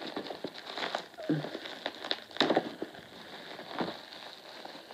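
Parcel packaging being handled and cut open: rustling and crinkling with irregular clicks and taps, the loudest about two and a half seconds in.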